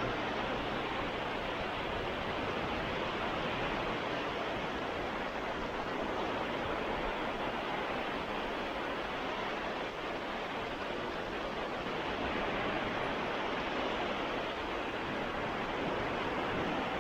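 Baltic Sea surf washing onto a beach: a steady, unbroken rush of wave noise with no distinct single breakers.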